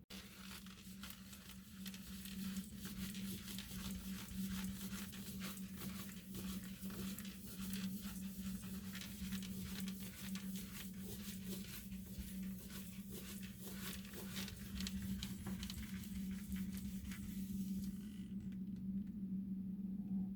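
Rapid, irregular crackling and rustling, like something being handled, crumpled or torn, stopping suddenly near the end, over a steady low hum.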